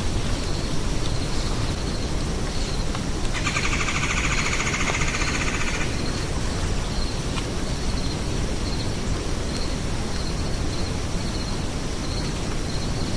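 Woodland ambience: a steady low rumble of wind on the microphone under faint high chirps that repeat throughout. About three seconds in, a louder buzzy trill of rapid even pulses sounds for about two and a half seconds.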